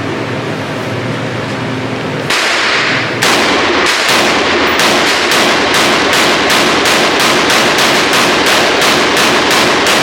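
Rapid gunfire at a shooting range. Shots come evenly at about three a second for the second half, running together with their echo into a continuous din.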